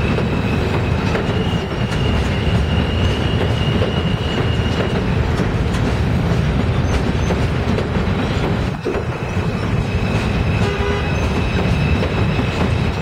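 New York City Subway train of R160-series cars running past on a sharp curve of an elevated steel structure: a loud, steady rumble with wheel clatter. A thin, steady wheel squeal rides over it for the first few seconds and again through the second half.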